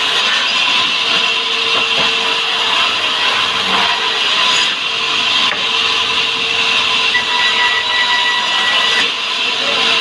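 Band sawmill blade cutting a log of salam hardwood: a loud, steady whine and hiss with no break.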